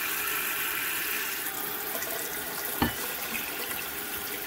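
Kitchen faucet running water into a glass measuring cup in a stainless steel sink. A single sharp knock comes about three seconds in.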